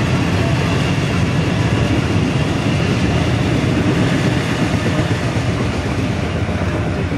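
Sydney Trains Waratah double-deck electric multiple unit passing close by: a steady rumble of wheels on rails that eases slightly near the end.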